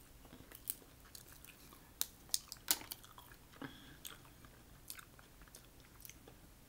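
Close-miked chewing of mussels, with scattered wet mouth clicks and smacks.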